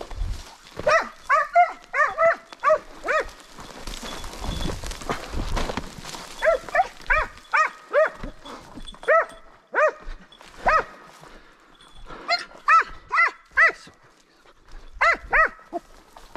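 Hunting hound giving voice in bouts of short, high, yelping barks, several at a time with pauses between, as a hound does on a hare's trail. About four seconds in there is a couple of seconds of rustling noise.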